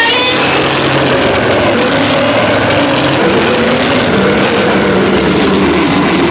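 A film monster roar sound effect: one long, loud roar whose pitch wavers.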